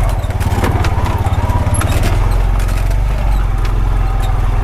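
A Honda Pioneer 520 side-by-side's single-cylinder engine running with a steady, pulsing low rumble, with scattered clicks and knocks over it.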